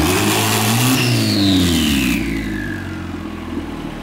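Car engine revving up and back down in the first couple of seconds, with a high whistle falling in pitch, then settling to a steady idle.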